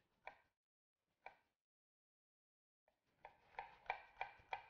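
Chef's knife slicing a red onion on a wooden cutting board, each cut a short knock of the blade on the board. Two cuts come in the first second and a half, then a pause, then a quick run of cuts, about three a second, over the last second and a half.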